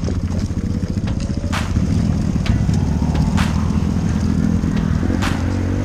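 Off-road motorcycle engine running under load, its pitch rising over the first second or so, with a few sharp clacks along the way.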